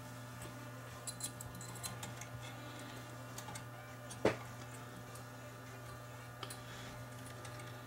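Faint small clicks and taps of fingers handling the transport mechanism inside a Pioneer CTF500 cassette deck while a new drive belt is worked into place. One sharper click comes about four seconds in, over a steady low hum.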